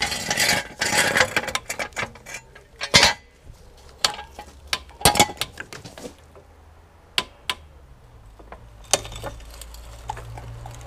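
Metal clinks, rattles and sharp clicks from a steel trolley jack and its handle being worked to lower the car. The handling is busy for the first few seconds, then thins to scattered single clicks.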